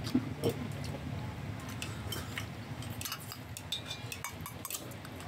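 Scattered small clicks and wet smacks of close-up eating of snakehead fish porridge, from mouth and chopsticks, over a low steady hum.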